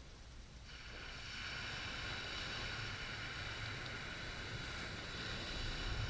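Calm Pacific surf washing up a beach: a hiss of a small wave running up the shore starts about a second in and swells slightly toward the end, over a low rumble of the sea and wind.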